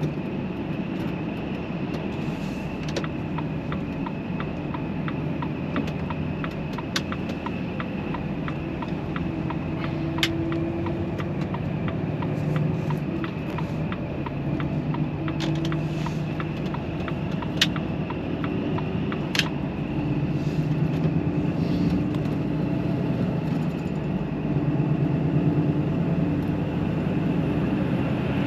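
Volvo FH 540 truck on the move: its 13-litre six-cylinder diesel and road noise make a steady drone. For the first two-thirds a regular, faint, rapid ticking runs over it.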